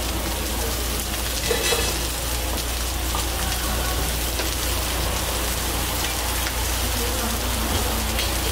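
Chicken pieces sizzling on a hot flat-top griddle: a steady, even hiss over a low hum, with a brief clatter about one and a half seconds in.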